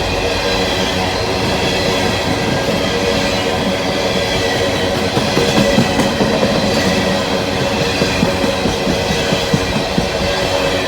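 Empty coal hopper cars of a long freight train rolling past with a steady rumble of steel wheels on rail. In the second half, a run of sharp clacks comes as wheels cross rail joints.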